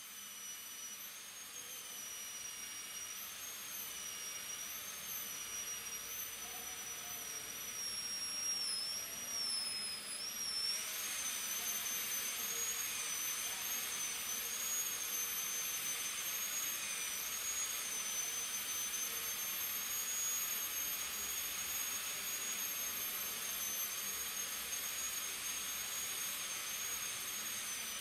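High-speed air-turbine dental handpiece whining as its bur cuts down a plastic practice tooth. The pitch wavers and dips as the bur bears on the tooth, and a hiss grows louder about a third of the way in.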